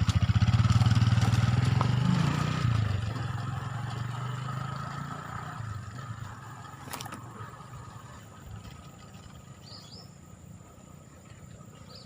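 A small engine running with a fast, even pulse, loud at first, then fading steadily over several seconds as it moves away.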